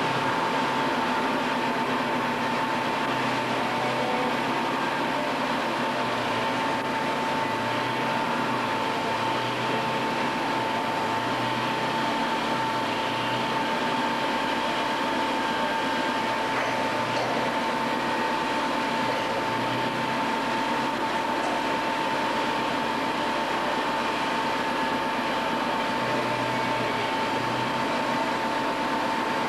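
Factory machinery running steadily: an even mechanical noise with a constant high-pitched whine.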